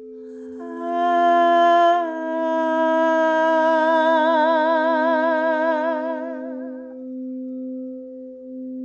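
Crystal singing bowls ringing with steady sustained tones, while a voice sings one long held note that comes in under a second in, takes on a vibrato after about two seconds, and fades out near seven seconds.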